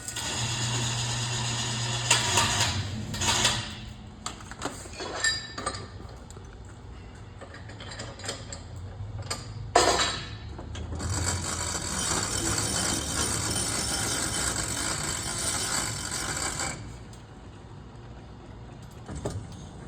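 Metal clinks, knocks and scraping of steel bar stock being handled and pushed through a manual lathe, with one sharp loud clank about ten seconds in. This is followed by a steady hiss lasting about six seconds.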